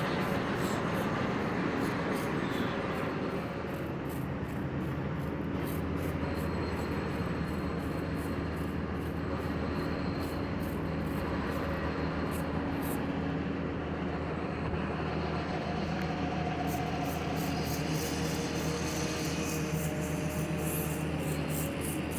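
Steady low engine hum of construction machinery such as a truck or forklift running, with faint rapid ticking over it.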